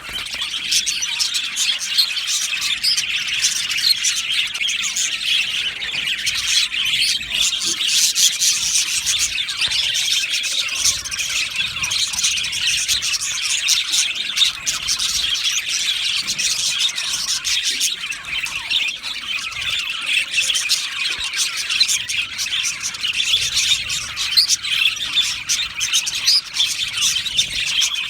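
A flock of budgerigars in an aviary chattering, chirping and warbling all at once, a dense unbroken chorus of many overlapping calls.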